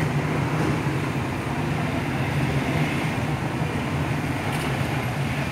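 Street traffic: vehicle engines running steadily, with a low engine hum under a constant wash of road noise.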